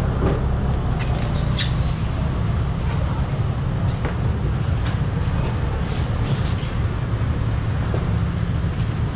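A steady low rumble with scattered clicks and knocks, and a few faint, brief high chirps or squeaks.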